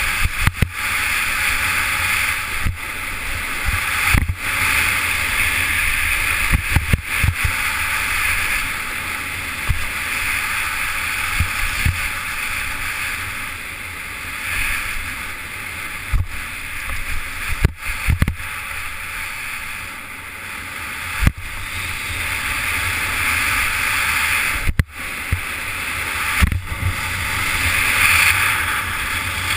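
Skis hissing and scraping over packed, groomed snow at speed, with wind rumbling on the microphone. Sharp thumps come every few seconds.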